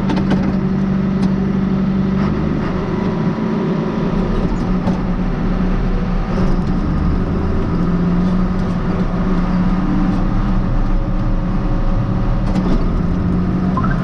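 John Deere 4760 tractor's six-cylinder diesel engine running steadily at road speed, heard from inside the cab along with road noise; the engine note dips briefly about eight seconds in.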